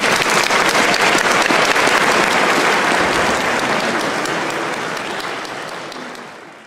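Audience applauding, dying down after a few seconds and fading out near the end.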